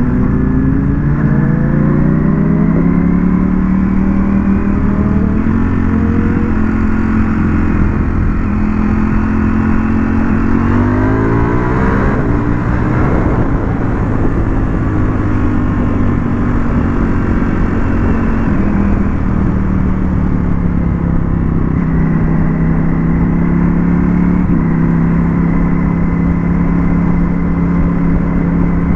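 Ducati Panigale V4S's V4 engine under way, its pitch climbing through the gears with drops at each upshift, about 3 s and 6 s in, rising hard again to about 12 s, then falling away as the rider eases off, before settling into a steadier run with another shift near the end. Wind noise rushes over the microphone throughout.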